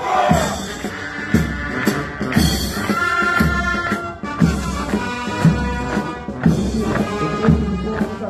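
Military march music with a heavy drum beat about once a second, with the marching soldiers' voices singing or chanting along.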